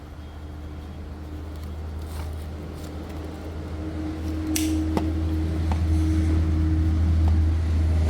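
A replacement condensate drain pump for an Indesit condenser tumble dryer, powered straight from the mains, running with a steady low hum that grows louder about halfway through: the new pump works. A few sharp clicks come near the middle.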